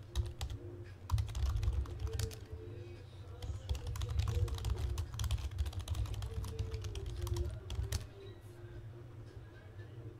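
Typing on a computer keyboard: a quick, uneven run of key clicks from about a second in until about eight seconds, over a low steady hum.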